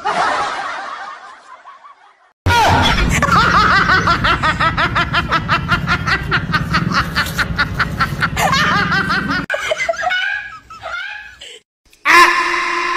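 Comedy laughter sound effect: a long run of rapid snickering laughs starting about two and a half seconds in and trailing off after about seven seconds, after a brief fading hiss at the start. Near the end a ringing musical tone sets in.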